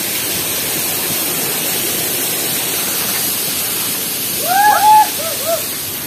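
Waterfall rushing steadily, with a person's brief call about four and a half seconds in.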